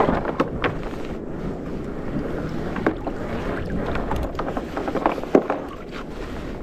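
Wind buffeting the microphone and water washing around a fishing kayak at sea, with scattered sharp knocks and clicks from gear being handled on board, the loudest a little over five seconds in.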